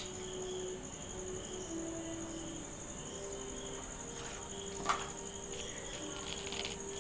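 A cricket trilling steadily in a fast, even pulse, with one light sharp tap about five seconds in.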